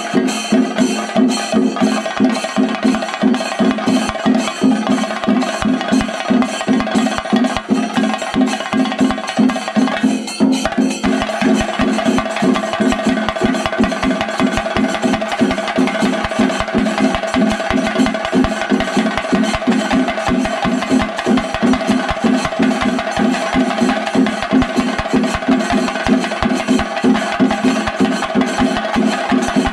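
Fast, continuous drumming by a Kerala chenda troupe: dense, rapid stick strokes on the drums, played without a break.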